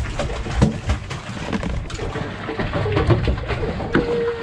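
Irregular knocks and thumps of a mahi-mahi being held down and unhooked against a boat's side, over a low rumble of wind and water, with a brief steady squeak-like tone about four seconds in.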